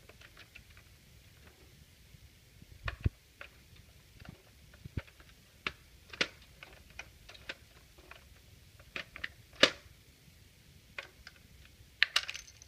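Plastic clicks of a toy claw machine's push buttons being pressed to work the claw: sharp single clicks at irregular intervals, the loudest about ten seconds in, and a quick run of clicks near the end.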